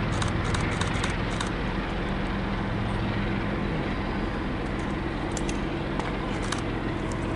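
Diesel-electric freight locomotive approaching under power, a steady low engine drone, with clusters of sharp clicks at the start and again about five seconds in.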